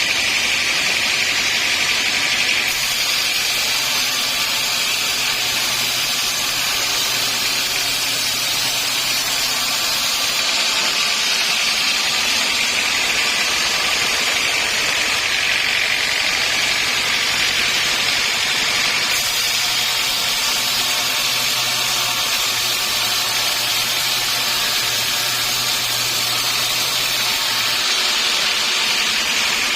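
Sawmill machinery running steadily: a continuous hissing whine of a saw and motors, with a low hum underneath. The noise shifts abruptly every several seconds.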